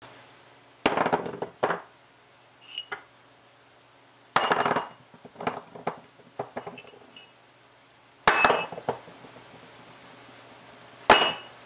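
Old iron railroad spikes and a square nut being dropped onto a workbench: four heavy metal clanks about three seconds apart, each with a few smaller knocks and a brief metallic ring as the pieces bounce and settle.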